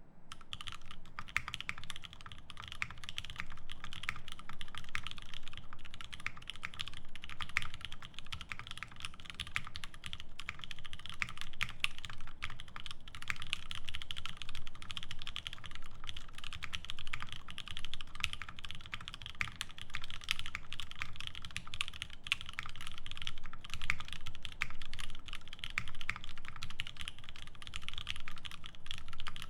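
Continuous typing on a Satisfaction75 mechanical keyboard with lubed Nixie linear switches (63.5 g springs), an FR4 plate and GMK ABS keycaps: a steady, unbroken stream of keystroke clicks. The owner says the stabilizers rattle, apart from the spacebar.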